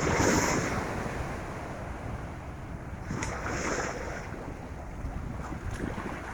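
Ocean waves washing onto the beach, with two louder surges of surf, one at the start and one about three seconds in. Wind is buffeting the microphone and adds a low rumble underneath.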